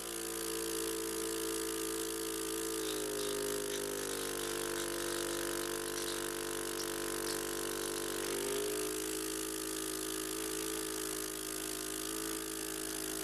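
Electric suction machine's pump motor running with a steady hum, used for oral suctioning of airway secretions after cough-assist breaths. Its pitch shifts slightly from about three seconds in until about eight and a half seconds in.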